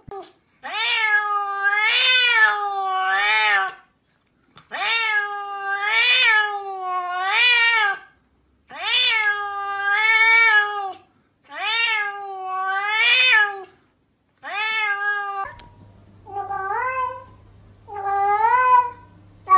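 Domestic cat meowing in four long, wavering calls, each rising and falling two or three times. After that a second cat gives shorter meows.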